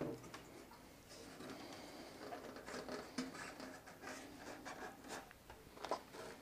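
Faint handling noises: soft scrapes, rustling and small clicks of hands moving over a motorcycle's plastic bodywork and parts.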